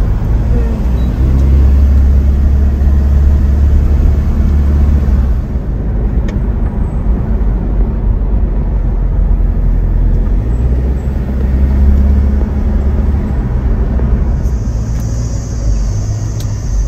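Engine and road noise inside a Mitsubishi Pajero Sport on the move, windows down: a deep steady rumble that swells twice and eases. A high steady tone joins near the end.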